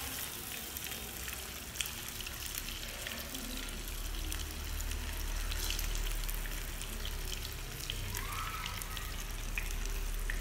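Meat rolls (chả cuốn) sizzling in hot frying oil in a small pan: a steady hiss with scattered little pops. A low hum comes in a few seconds in.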